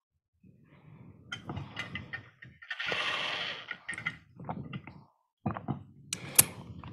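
Small clicks and knocks with rustling handling noise, and a short hiss about three seconds in.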